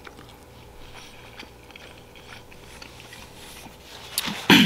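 A man chewing a mouthful of pork carnitas taco, quietly, with small wet mouth clicks. Near the end comes a short, louder rustle as a paper napkin wipes his mouth and beard.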